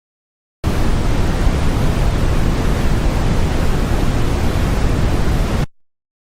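Steady generated noise, a rushing hiss with a strong low rumble. It switches on about half a second in and cuts off abruptly some five seconds later. It is a sample of how tinnitus can sound.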